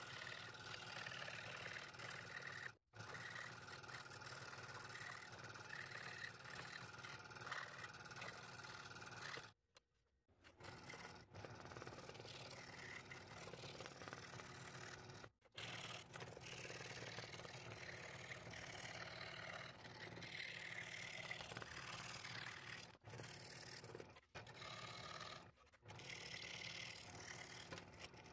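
Scroll saw running, its fine blade cutting thin wood stock. The saw's noise stops abruptly several times for a moment.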